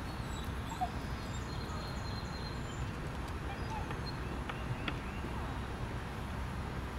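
Outdoor background noise: a steady low rumble, with faint high bird chirps in the first few seconds and a few light clicks.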